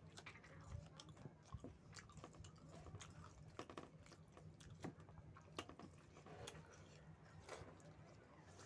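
Faint close-up chewing of a mouthful of rice and chicken curry: irregular wet mouth clicks and smacks, several a second.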